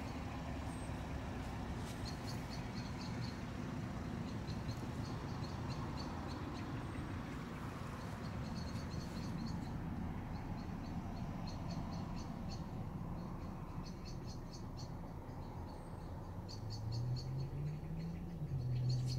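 Short, rapid trills of high bird chirps every few seconds over a steady low background hum. A low droning tone rises and steps in pitch near the end.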